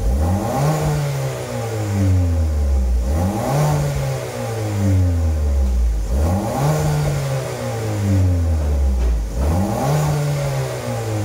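Ford Focus 1.5 MK3.5 engine heard through an aftermarket single-canister rear muffler with left and right outlets, revved four times: each rev climbs quickly, then the pitch sinks slowly back down over a couple of seconds.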